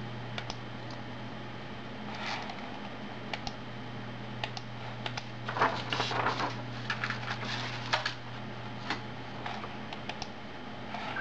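Clicks of Amiga keyboard keys and mouse buttons, scattered, with a quick run of keystrokes about six to eight seconds in, over a steady low hum.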